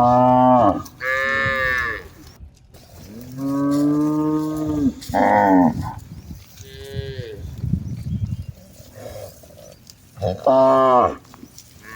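Cattle mooing, several cows calling one after another: about six moos of different pitches, mostly short, with one longer, lower call about three seconds in.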